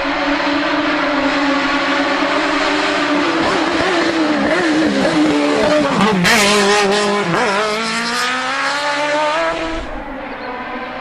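Group E2-SC sports prototype race car engine at high revs, coming up the hill and passing close by, its pitch dipping and climbing again through gear changes. Loudest as it passes about six seconds in; the sound drops off abruptly about a second before the end.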